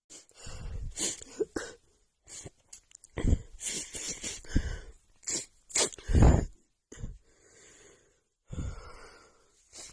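A woman's sneezing fit: a rapid string of short sneezes and sharp breaths in quick succession, the loudest about six seconds in. It is brought on by a runny nose from cold air and dust.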